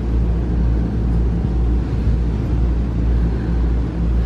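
A running motor's steady low drone, unchanging throughout.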